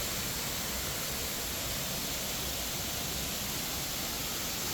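Waterfall's falling water rushing, a steady even noise.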